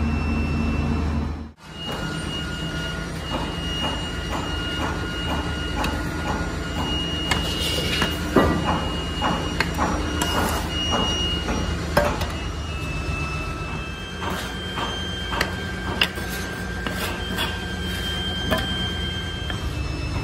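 Foundry sand rammed by hand with a wooden rammer into a metal core box: a run of dull knocks, about two a second, over a steady machine hum.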